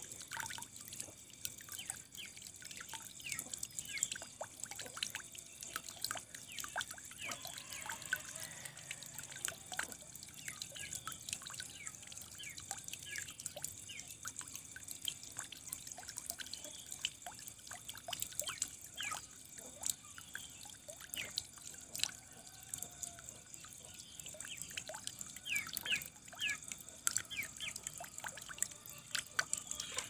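Water trickling and dripping, a dense, continuous patter of small drops and short bubbly plinks.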